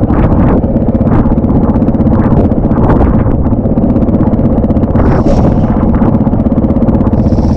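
Off-road motorcycle engine idling steadily close by, its exhaust pulsing evenly.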